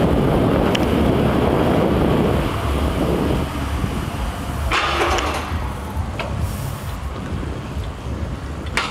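Mountain bike rolling fast through a tiled underpass: a steady rumble of tyres and rushing air on the handheld camera, loudest in the first few seconds, with a few sharp rattles about five seconds in and again near the end.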